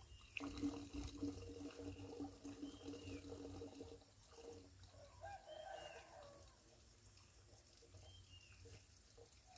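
Faint farmyard background: a rooster crows once around the middle, small birds give short chirps now and then, and a low steady hum runs through the first few seconds.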